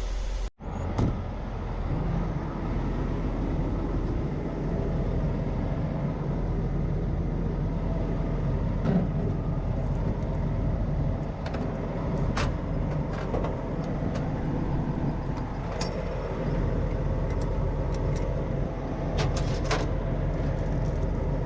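Semi truck's diesel engine idling steadily, with scattered short clicks and knocks over it.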